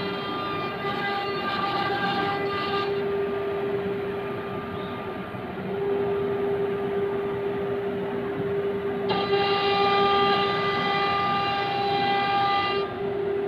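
Spindle of a three-head CNC router whining steadily as its bit engraves a wood door panel. The whine turns brighter and fuller with overtones for a few seconds near the start and again in the last few seconds.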